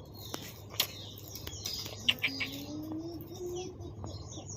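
Several small birds chirping, with short falling chirps repeated throughout, and a few sharp clicks about a second and two seconds in.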